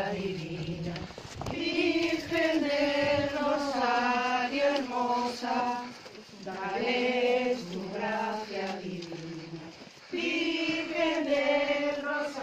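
A group of women singing a hymn to the Virgin in unison as they walk, in long held phrases with a short break about six seconds in and another near ten seconds.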